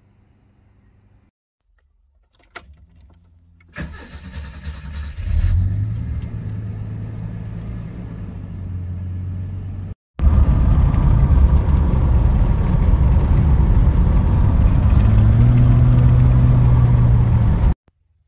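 Ford EB Fairmont engine starting and then idling. After a cut, the car is heard driving from inside the cabin: steady engine and road noise, with the revs rising slightly a few seconds before the end.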